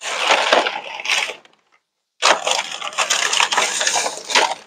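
Crumpled paper crinkling and rustling as a glass dish lid is unwrapped from packing paper inside a paper bag, in two stretches with a short pause between.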